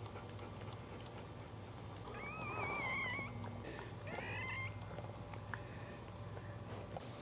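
Newborn Cairn Terrier puppy squealing twice: a high, wavering cry about two seconds in lasting about a second, then a shorter one about four seconds in. A steady low hum lies underneath.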